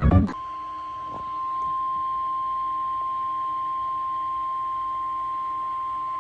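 NOAA Weather Radio 1050 Hz warning alarm tone: one steady, unbroken tone for the weekly routine test, getting louder about a second and a half in. It starts right after a short burst of digital alert data tones at the very start.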